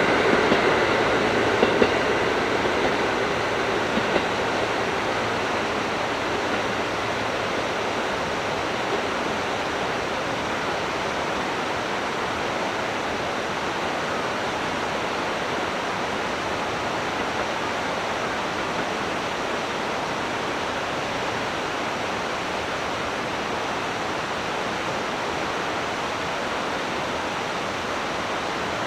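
A passing train's rail noise dies away over the first few seconds, leaving a steady rushing noise with no rhythm or tone.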